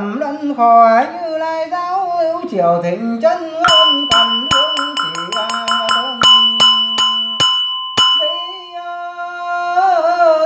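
A man chanting Buddhist liturgy. From about four to eight seconds in, a small metal bell is struck in a quick run of strokes that speeds up and then slows, and its ring carries under the chant. Near the end the chanting goes on alone.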